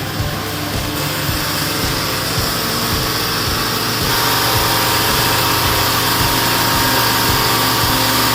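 An engine running steadily, growing louder and brighter about halfway through.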